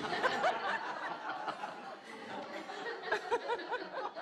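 Several people laughing and chuckling together, short rising-and-falling laughs overlapping one another.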